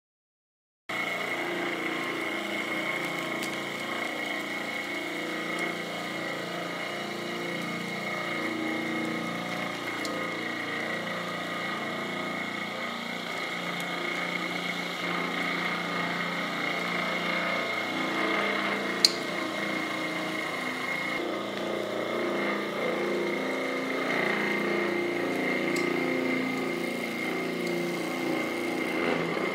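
Single-head walk-behind concrete floor grinder running steadily, its metal-bond diamond segments grinding a concrete floor: a constant motor whine with a high steady tone over the grinding noise, starting about a second in. One sharp click about two-thirds of the way through.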